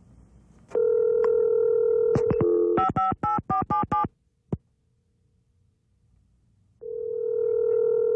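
A telephone call being dialed over the line: a steady dial tone, a few clicks, then a quick run of about six touch-tone keypad beeps and a single click. After a short quiet gap, a steady tone of the same kind comes back for about two seconds near the end, a ringback tone as the called line rings.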